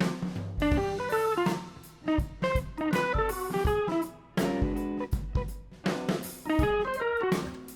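Background music: plucked guitar melody over a drum kit beat.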